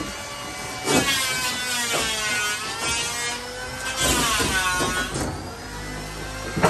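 A motor-driven power tool running, its pitch sagging and recovering twice, with a few sharp knocks.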